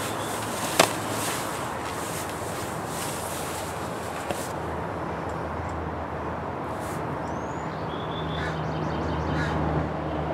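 Nylon hammock fabric rustling as a person shifts round in it, with a sharp click a little under a second in. A low steady hum comes in about halfway and grows louder toward the end, and a short high bird-like chirp sounds near the middle.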